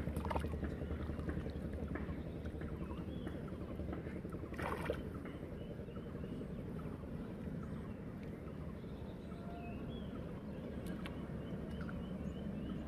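Shallow muddy floodwater sloshing and splashing as a person wades and gropes through it by hand, with one louder splash about four and a half seconds in. Faint, quick high chirps repeat near the end.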